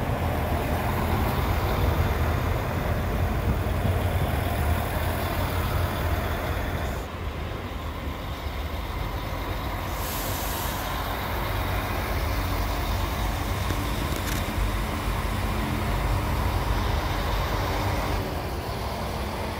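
Pesa Link diesel multiple unit moving slowly along the platform while shunting, its diesel engines running with a steady low rumble. A short hiss of air comes about ten seconds in.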